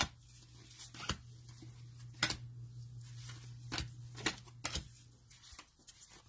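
Trading cards being handled: a handful of sharp, separate clicks and snaps as cards are flipped and set down, over a steady low hum.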